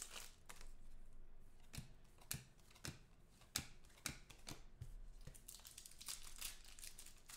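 Faint crinkling of plastic card sleeves with scattered light clicks and taps as a trading card is handled and slid into a rigid plastic holder.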